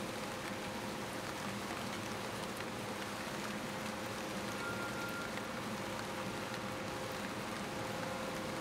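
Steady hiss of rain with a faint, steady hum underneath.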